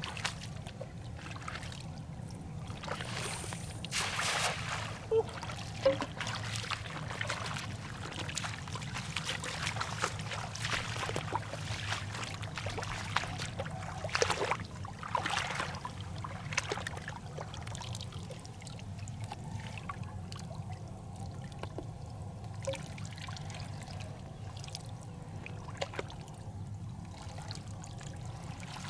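Water splashing and trickling in irregular splashes over a steady low drone.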